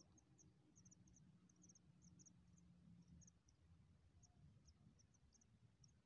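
Near silence, with faint, high, short ticks coming a few a second and often in pairs, like insects chirping in the grass.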